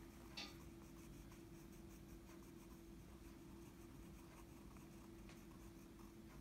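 Faint scratching of a black colour pencil on paper as small areas are coloured in, with a light tap about half a second in. A steady low hum runs beneath.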